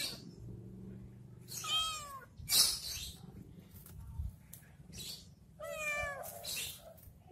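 A cat meowing twice, a high, arching mew about two seconds in and another about six seconds in. Between them, a sharp click is the loudest sound.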